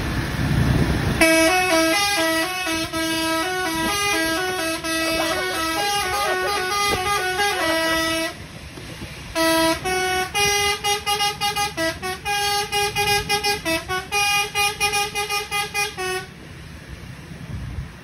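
Bus telolet horn, a multi-tone Basuri horn, playing a melody of stepping notes about a second in, breaking off briefly at about eight seconds, then playing quick repeated staccato notes until about sixteen seconds in. Low rumble of the passing bus and wind before and after the horn.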